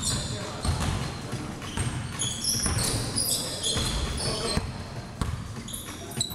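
A basketball bouncing on a hardwood gym floor, with many short high-pitched squeaks of sneakers on the court and players' voices in a large hall.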